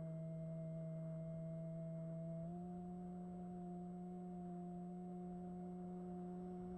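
Electric motor and propeller of a Bixler 1 model plane humming at a steady pitch, stepping up to a slightly higher pitch about two and a half seconds in as the throttle is raised.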